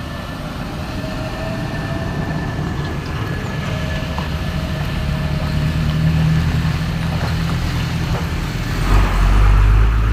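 Heavy truck's diesel engine rumbling as it approaches, growing steadily louder and loudest about nine seconds in as it passes close.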